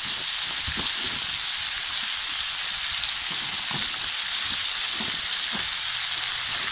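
Root vegetables sizzling steadily as they fry in a very hot pan with oil, with a few faint knocks.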